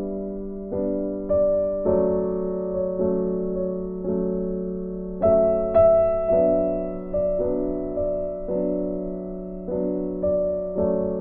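Background music: a gentle piano plays slow, soft notes and chords, each struck about once a second and left to fade.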